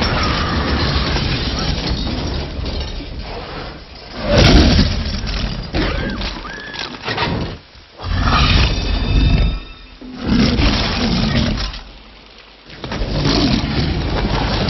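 Film sound of a Tyrannosaurus rex roaring and growling while it pushes over and crushes a tour vehicle, with crunching metal and breaking glass. The sound comes in several loud bursts with short lulls between them.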